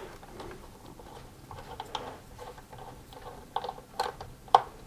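Torx screwdriver backing screws out of the plastic underside of a Gtech AirRam vacuum: faint, irregular small clicks and ticks of the bit and screw, with a sharper click near the end.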